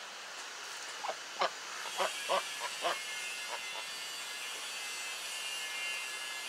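White domestic ducks quacking: a quick run of about eight short quacks, starting about a second in.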